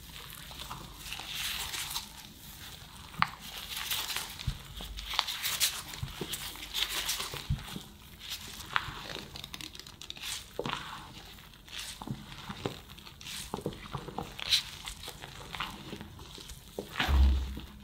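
Silicone spatula folding flour into whipped egg-and-sugar sponge batter in a glass bowl: soft, irregular scraping and squelching strokes with scattered sharp clicks. A dull thump near the end.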